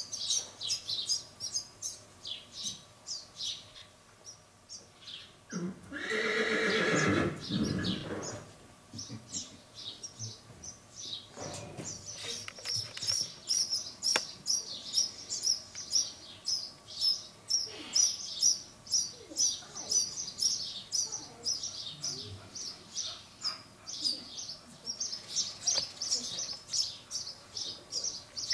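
A mule whinnies once, a long call of about two and a half seconds starting about six seconds in. Small birds chirp rapidly throughout.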